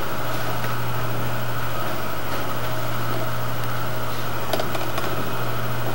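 Steady low room hum, even in level throughout, with a few faint knocks about four and a half seconds in.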